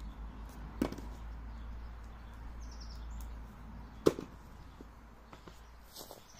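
Two sharp wooden knocks, about three seconds apart, from handling logs and the axe at a chopping block, the second the louder, with a few fainter knocks after it. A bird chirps briefly between them over a low steady rumble.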